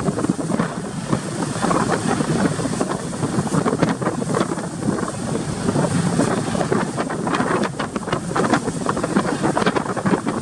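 Strong wind buffeting the microphone aboard a ship at sea: a loud, gusty rushing with irregular gusts, the sea and the ship's motion under it.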